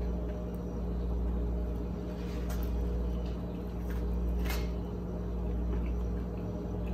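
Steady low hum under a person eating: quiet chewing of coco bread and jerk chicken, with a few soft clicks from the mouth or a plastic fork.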